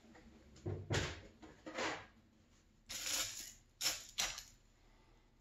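Spoon working milk-soaked Frosted Flakes in a glass bowl, with the flakes crunching: several short crackling bursts, the last two sharp and about half a second apart.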